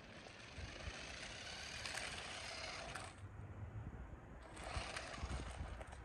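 Rhybor electric remote-control car running on asphalt, a high whirring of its motor and gears with tyre noise, dropping away for about a second a little after three seconds in and then picking up again.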